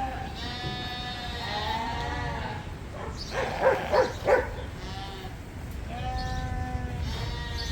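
Newly weaned lambs bleating, about six drawn-out calls one after another, the lambs calling for their mothers after weaning. A steady low rumble runs underneath.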